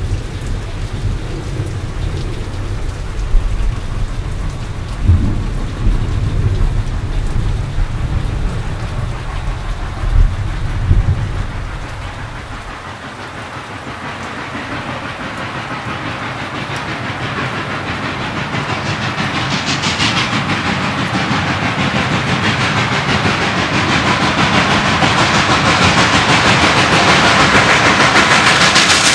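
Thunder rumbling over steady rain, with a few sharp cracks in the first half. The rumble then fades, and a steady hiss builds louder and louder toward the end.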